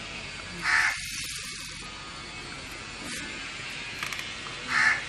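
A crow cawing twice, single short caws about four seconds apart, over a steady background hiss.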